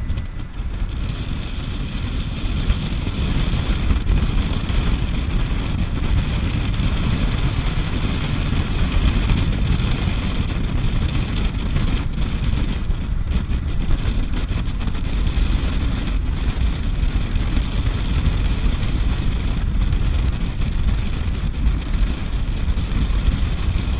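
Wind rushing over the microphone at the bow of a moving motorboat, over the rush of water and the boat's running engine; the wind noise is steady and gusty.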